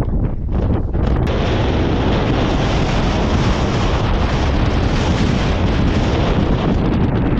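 Strong wind buffeting the microphone, with a heavy gust setting in about a second in and blowing steadily after that.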